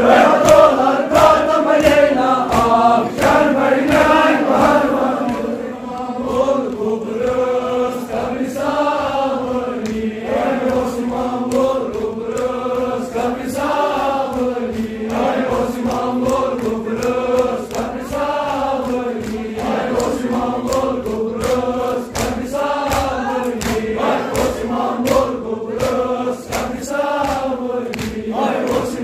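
Crowd of men chanting a nauha (mourning lament) in unison, with a steady rhythm of hand slaps from matam chest-beating.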